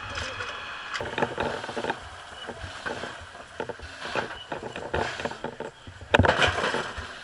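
Irregular knocks and scrapes from firefighters working on a roof to ventilate a structure fire, with a loud crash about six seconds in.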